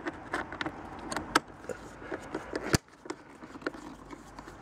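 Small metallic clicks and scrapes of a Torx screwdriver working the T20 bolts on an engine's air-filter housing cover, with one sharper click a little under three seconds in.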